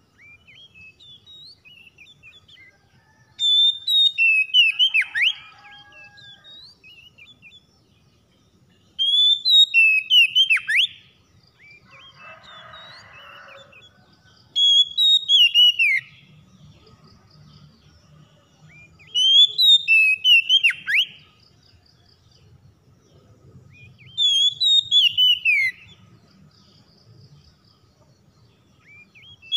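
Oriental magpie-robin singing: five loud phrases of sweeping, falling whistled notes, each about two seconds long and roughly five seconds apart, with softer notes in between.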